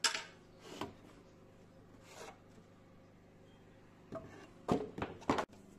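Several short scrapes and clicks of parts and tools being handled while a mower is taken apart, over a steady low hum. The loudest cluster comes near the end.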